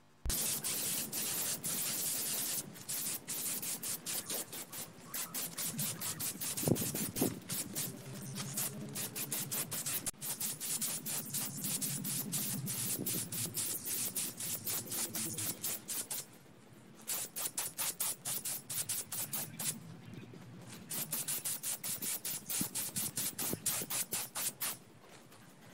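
Compressed-air paint spray gun (gravity-feed type) hissing as paint is sprayed. It runs in long spells with a couple of short breaks where the trigger is released.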